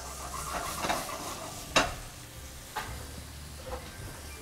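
Flour-dredged chicken breasts frying in oil and butter in a stainless steel sauté pan: a steady sizzle, broken by a few sharp clicks, the loudest a little under two seconds in.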